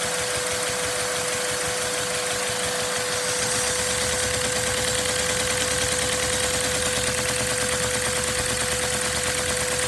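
A LEGO oscillating flat-four vacuum engine running fast on vacuum-cleaner suction drawn through a hose. A steady rush and a constant whine come from the vacuum, over a rapid, even clatter from the plastic cylinders and crank.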